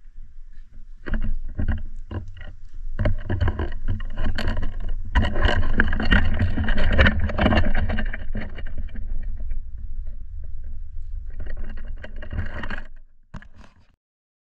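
Wind buffeting and handling noise on an action camera's microphone outdoors, a loud uneven rumble with scattered knocks, cutting off about thirteen seconds in.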